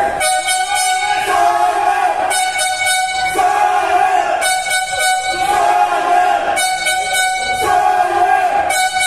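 Loud music with a held, horn-like tone under it and a bright phrase that repeats about every two seconds.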